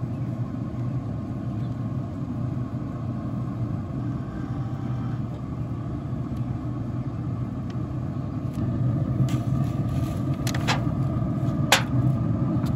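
Steady low rumble, a little louder about two-thirds of the way through. A few light clicks and one sharper knock near the end come as an aluminium foil loaf pan is tipped and lifted off a meat loaf on metal smoker grates.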